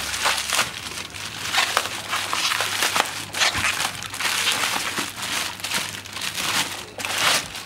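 Plastic bubble wrap crinkling and rustling in quick, irregular handfuls as it is pulled open and peeled off a kitefoil's rear wing.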